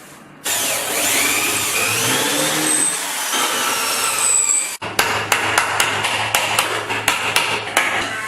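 A power tool running, its pitch shifting as it works, cutting off suddenly just before halfway. Then a quick run of sharp knocks, about four a second, over a steady low hum.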